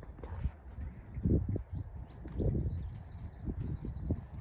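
A horse's hooves thudding irregularly on soft ground as it moves, with a few heavier footfalls about a second apart, over faint steady insect chirring.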